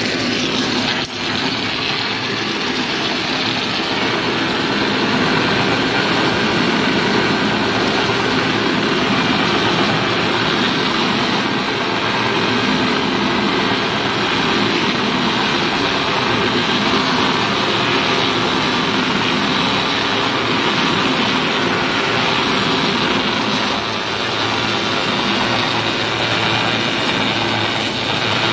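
Tyre strip-cutting machine running steadily as it turns a truck tyre against its blade and pares it into a continuous rubber strip: a loud, even mechanical drone.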